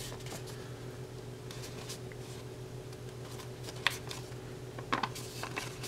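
Paper being handled and folded for origami: faint rustling, with two short sharp crinkles about four and five seconds in, over a steady low hum.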